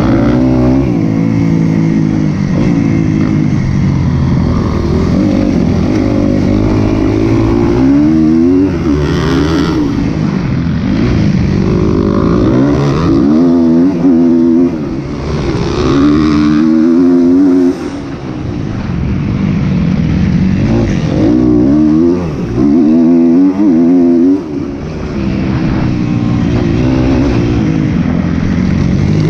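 2012 Kawasaki KX250F's four-stroke single-cylinder engine revving hard from on board, its pitch climbing and falling again and again as it shifts through the gears, with brief throttle cuts about halfway through and again near the end.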